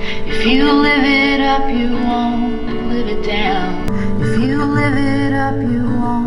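A song with a sung melody over instrumental accompaniment, played back through a budget speaker as a test of its sound quality.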